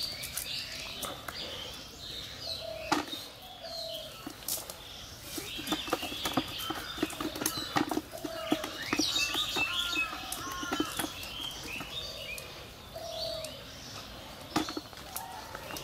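Live fish flapping and slapping in a cast net on bare ground as they are picked out by hand, with net rustling; the slapping is densest in the middle. Small birds chirp throughout.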